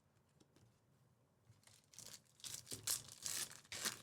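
A trading-card pack's foil wrapper being torn open and crinkled: a quick run of short tearing rustles starting about two seconds in.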